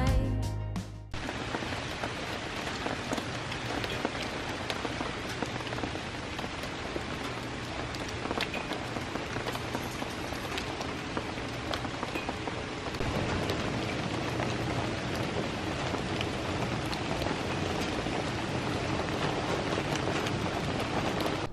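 Steady rain falling, an even hiss dotted with the patter of individual drops, growing a little louder about halfway. Background music cuts off about a second in.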